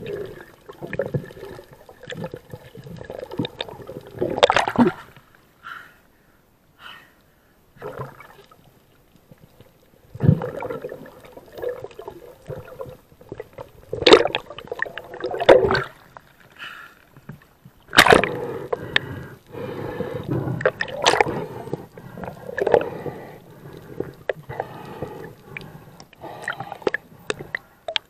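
Water gurgling and sloshing around an underwater action camera, broken by irregular clicks and knocks, with a short quiet gap a few seconds in and a sharp crack about eighteen seconds in.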